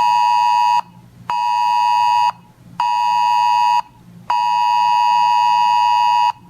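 Weather radio sounding its alert tone for an incoming weather warning message: a loud, high electronic beep near 1 kHz, repeated about a second on and half a second off, with the last beep running about twice as long.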